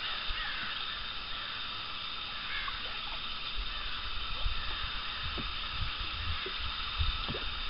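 Steady outdoor hiss with irregular low rumbles of wind buffeting the microphone, growing from about three and a half seconds in.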